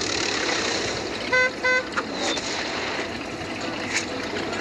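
Two short toots of one steady pitch in quick succession, like a car horn, about a second and a half in, over steady background noise.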